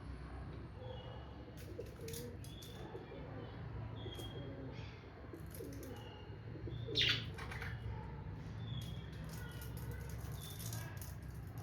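Pet budgerigars chirping softly with short high calls, among scratchy clicks, and a louder brief flutter of wings about seven seconds in.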